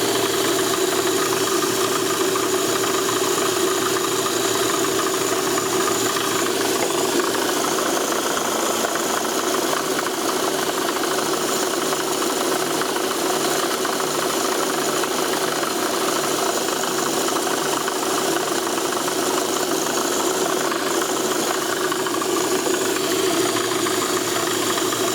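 Lada Priora engine running steadily under the hood, with an extraneous knocking or rattling noise from the engine bay that the owner is trying to show.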